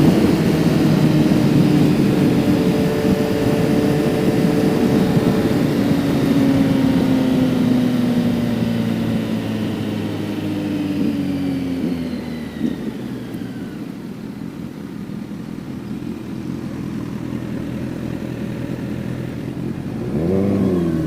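Kawasaki Z900's inline-four engine heard from on the bike, with wind noise. Its pitch falls steadily as the bike slows for about the first twelve seconds, then it runs quieter at low revs. A short rise in revs comes near the end.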